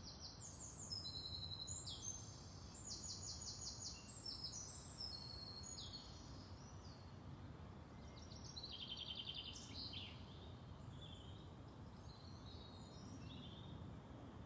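Faint songbirds singing: quick, high chirps and rapid trills, busiest in the first few seconds and again about nine seconds in, over a low steady outdoor hiss.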